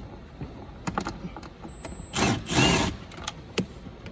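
A cordless power driver running in two short bursts about two seconds in, backing out a 7 mm dash bolt, with a few sharp clicks of the tool and socket before and after.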